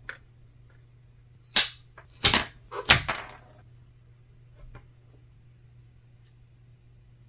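Duct tape ripped off the roll in three short, loud pulls about a second apart, with a few light clicks around them.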